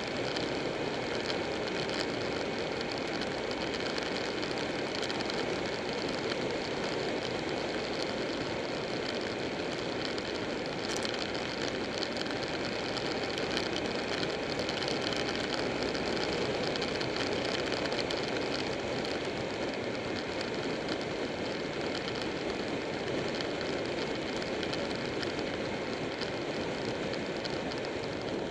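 Buell 1125R V-twin running at a steady cruising speed, mixed with wind rush and tyre noise on the bike-mounted microphone.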